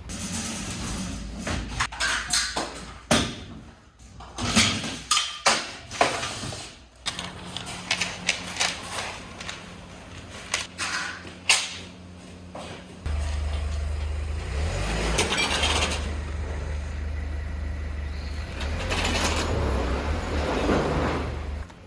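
Knocks and clatters of renovation work, irregular and sharp. About thirteen seconds in, a steady low rumble starts suddenly and carries on to near the end.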